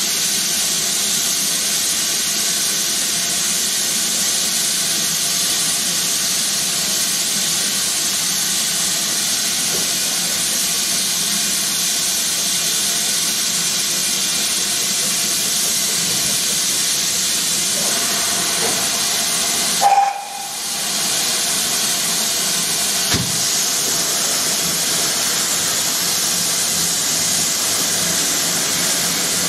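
GWR King class 4-6-0 No. 6023 standing in steam, with a steady hiss of escaping steam. About twenty seconds in comes one short toot of its whistle.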